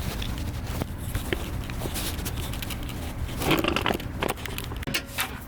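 Scattered light clicks and rustling handling noises from hands-on work on the brake assembly, over a steady low rumble, with a louder scraping stretch about three and a half seconds in.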